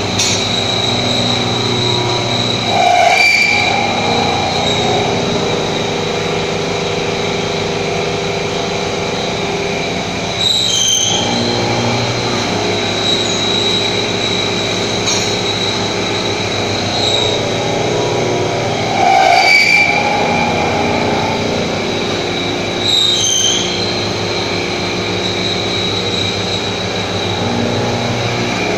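CNC milling machine with a 3.7 kW AC spindle running a program and machining, a steady mechanical sound with several steady whining tones. About four brief, louder high-pitched flares come through it.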